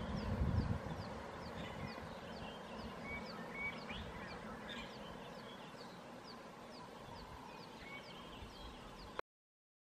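Bush ambience: a short, high, falling chirp repeated steadily about twice a second, with a few other faint bird chirps and a low rumble in the first second. It cuts off suddenly near the end.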